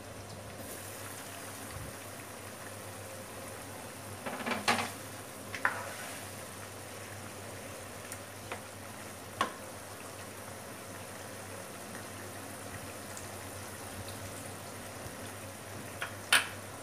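Pork and braising liquid simmering in an uncovered nonstick wok, a steady bubbling hiss that grows once the lid is lifted. A few sharp clacks of a spatula and lid against the pan break in, the loudest near the end.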